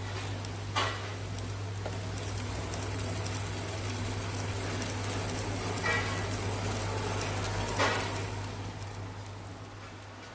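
Brass HO-scale Virginian 2-10-10-2 model locomotive mechanism running on test rollers, driven by a Mashima 12 V DC can motor: a steady hum under a rattling, crackling noise from the gears, rods and wheels, with a few sharp clicks. It fades away near the end.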